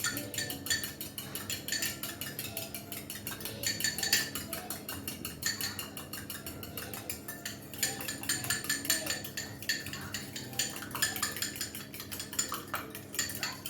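A single egg being beaten for an egg wash: a utensil clinking rapidly and steadily against the side of a bowl, several strikes a second, with brief pauses.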